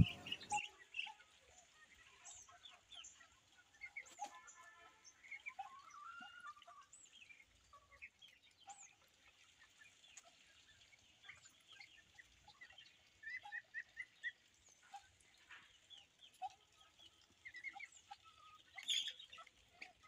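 Faint, scattered clucks and peeps of backyard poultry, with a quick run of chirps about two-thirds through.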